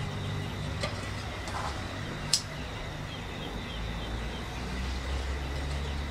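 A single sharp click about two seconds in, as a lighter is struck to light newspaper in the burner, over a low steady hum.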